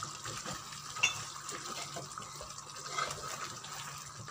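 Wooden spatula stirring a thick curry of chicken and potato pieces in a square pan, with a sharp knock about a second in and a few smaller knocks later, over a steady low hiss.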